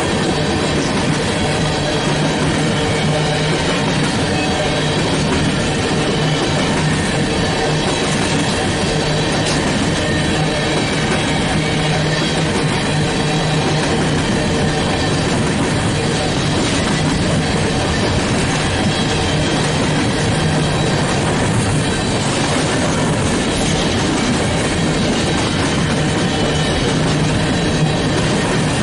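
Freight train cars rolling past at speed: a loud, steady rumble and rattle of wheels on rail, with some faint ringing tones.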